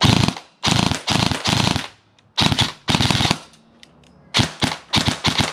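G&G electric airsoft rifle (AEG) firing on full auto in several short bursts of rapid shots, each burst a second or less, with brief pauses between them.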